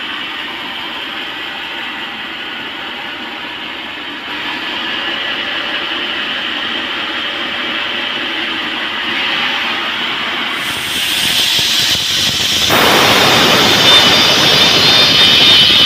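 Sawmill saw running steadily with a high whine, then growing much louder near the end as the blade cuts into the round teak log.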